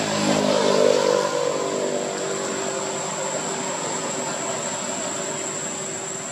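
A motor engine droning, swelling to its loudest about a second in and then easing off, over a steady high-pitched whine.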